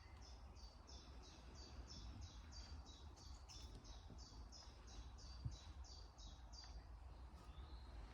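A songbird repeating one high chirp in a long even run, about three notes a second, stopping near the end. A faint low rumble underlies it.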